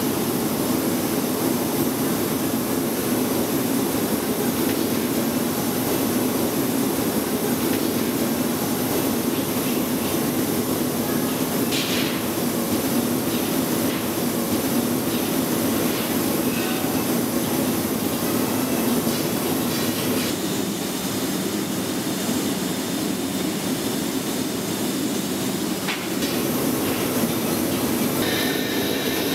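Steady roar of a glassworks floor, the gas-fired glass furnaces and their blowers running without a break. A few faint clicks and taps of metal tools sound over it.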